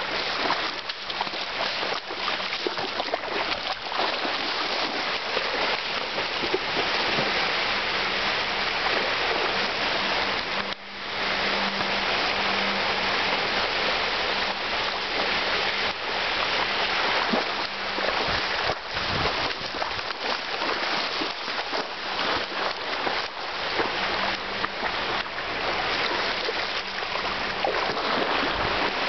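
Shallow seawater splashing and sloshing as a Shar-Pei wades through it and pokes its snout into the water, over the steady wash of small surf waves.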